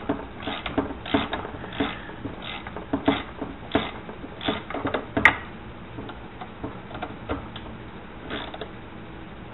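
Ratchet clicking in short strokes as a Torx bolt is worked loose, about one to two clicks a second. There is a sharper snap about five seconds in, then fainter, sparser ticks.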